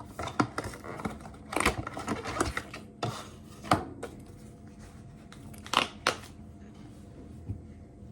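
Product packaging being handled and opened by hand: a run of crinkling, tearing and sharp clicks through the first half, two more clicks a little after the middle, then it goes quieter.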